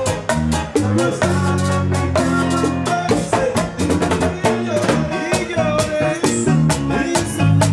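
A live Latin band playing: acoustic guitars picking a melody over electric bass and keyboard, with a steady fast percussion beat.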